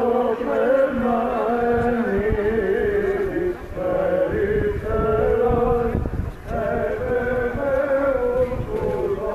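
Greek Orthodox Byzantine chant for Theophany: voices singing a slow, melismatic melody, with brief breaths between phrases.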